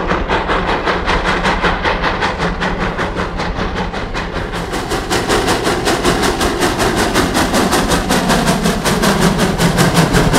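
Virginia & Truckee No. 29, a 2-8-0 steam locomotive, working hard upgrade with a freight train, its exhaust chuffing in a fast, even beat. The chuffs turn sharper and louder from about halfway through as the engine comes close.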